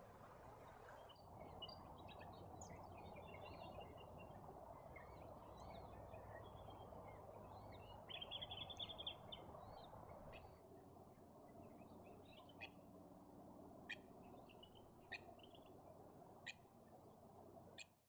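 Faint outdoor birdsong: scattered chirps and short calls from wild birds, a louder quick run of calls about eight seconds in, and several sharp single calls in the second half, over a low steady background rumble.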